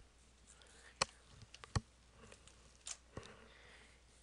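A handful of faint, sharp clicks, spaced irregularly, over quiet room tone.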